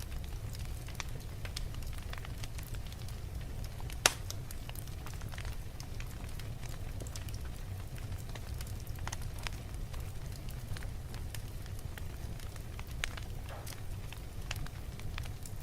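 Fire crackling, with scattered small pops over a steady low rumble and one sharp, loud pop about four seconds in.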